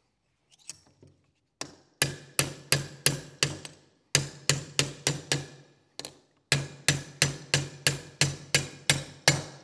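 Hammer striking a steel punch, sharp ringing metal-on-metal blows about three a second in several runs, driving the roll pin out of the cross pin of a G80 differential carrier.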